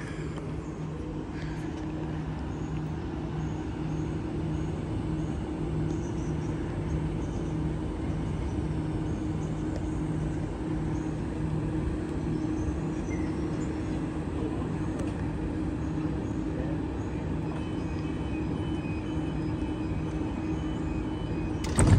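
Sydney Trains H set (OSCAR) electric train standing at the platform with its doors open, its on-board equipment giving a steady, pulsing hum. Just before the end comes a short loud knock as the doors close.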